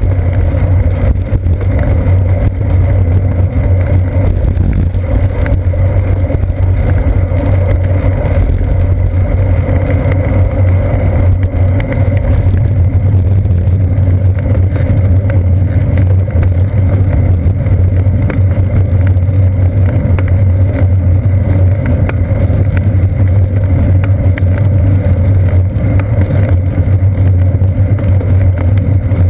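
Steady low rumble of wind buffeting and road vibration picked up by a seat-post-mounted GoPro Hero 2 on a moving bicycle.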